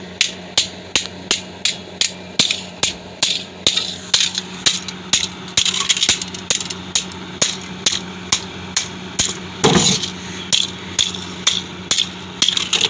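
Rapid, evenly paced blows striking old computer parts, about three a second, as a fan and floppy drive are smashed up. A steady low hum runs underneath.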